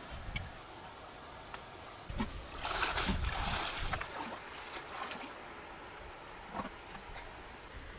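Water sloshing and splashing as a woven bamboo basket is swished and dunked in shallow river water. The splashing is loudest from about two to four seconds in, with a few smaller splashes after.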